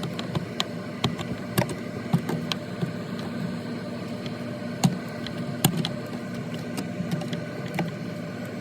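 A steady mechanical hum, likely the refrigerator running, with scattered sharp clicks and knocks of plastic parts and a screw being handled while a replacement ice maker is fitted into the freezer.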